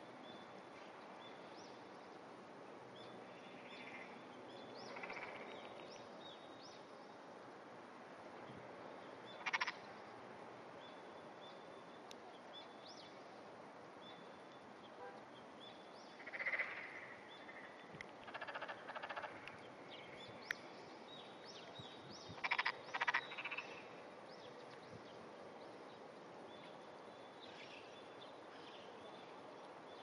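Frogs croaking in short bursts off and on over a quiet pond background. The loudest is a quick run of several croaks about two-thirds of the way through.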